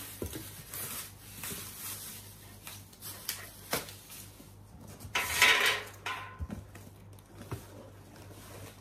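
Unboxing handling noise: light knocks and clatter of black metal plant-stand shelf pieces with foam end caps, amid rustling of plastic wrap and cardboard packaging, with a louder rustle about five seconds in.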